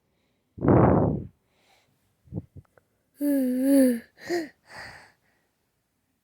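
A 13-month-old baby boy vocalising. About half a second in there is a loud breathy, noisy huff. A few faint clicks follow, then about three seconds in a wavering pitched coo lasting under a second, and two shorter sounds after it.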